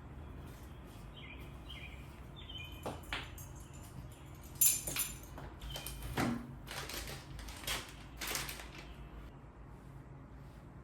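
Garage clutter being handled and moved: a series of short rustles and scrapes with a few knocks, over a low steady hum. A few short high chirps come about a second in.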